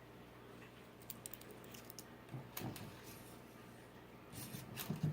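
Light clicks and taps of small 3D-printed plastic parts being handled, coming in a few short scattered clusters over a faint steady hum.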